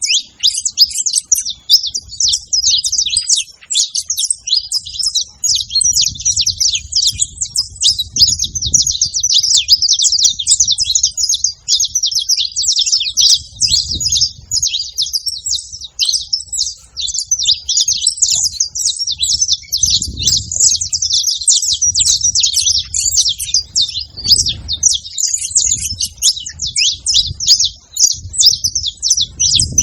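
Saffron finches chirping and singing in a dense, unbroken stream of rapid high chirps and trills.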